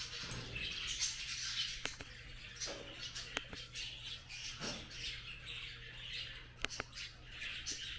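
Birds chirping in the background, with a few faint sharp clicks.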